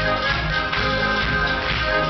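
Folk dance music with a steady beat, sustained notes over a regular rhythm, and spectators clapping along in time.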